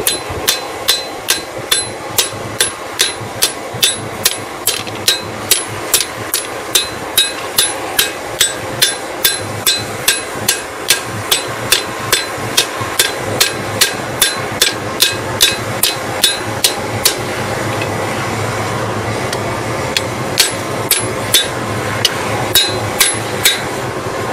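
Hand hammer striking a leaf-spring steel blank on an anvil to forge a draw knife: a steady run of sharp, ringing blows about two a second, a pause of a few seconds, then a few more spaced blows near the end.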